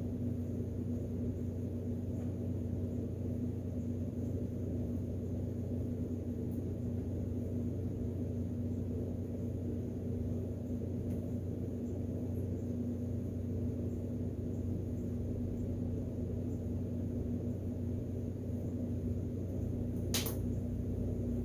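Steady low electrical or mechanical hum with a constant tone, and a single sharp click near the end.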